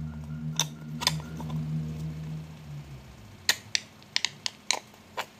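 Sharp plastic clicks and taps from a small plastic glue tube being squeezed out by hand over a glass bowl: a couple early on, then a quick run of about seven in the last two seconds. Under the first clicks a low steady hum fades out about three seconds in.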